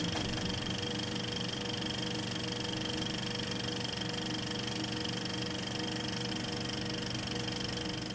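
Film projector running: a steady mechanical whirr and rapid clatter with a thin high whine over it.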